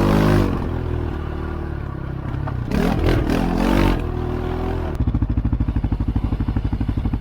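ATV engine running and revving, its pitch swelling up and down. About five seconds in it changes abruptly to a steady, fast chugging idle close by.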